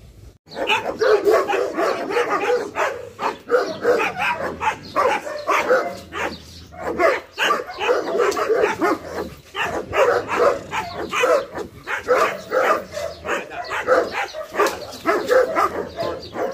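German Shepherd barking in rapid, continuous volleys, several barks a second, starting about half a second in.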